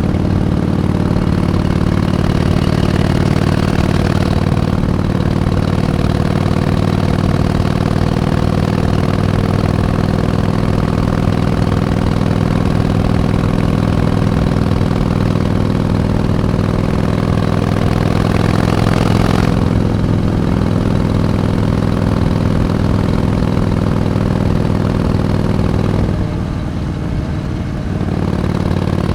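Harley-Davidson Iron 883's air-cooled V-twin running steadily under way on a ride. The engine note rises slightly and then drops about two thirds in, and the engine eases off briefly near the end.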